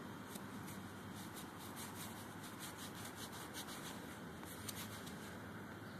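Faint, quick, irregular scratching of gloved fingers rubbing dirt off a small coin, over a steady low hiss.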